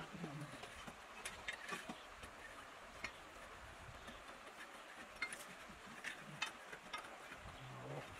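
Small wet pebbles clicking against each other and the wire-mesh sieve as fingers pick through the gravel, hand-sorting it for gemstones. The clicks come at irregular intervals, a dozen or so, over the faint steady hiss of the river.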